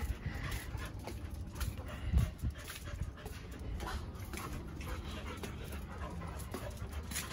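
A dog panting, with a single thump about two seconds in.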